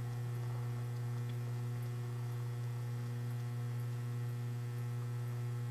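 Steady electrical mains hum: a constant low buzz with a ladder of fainter overtones above it.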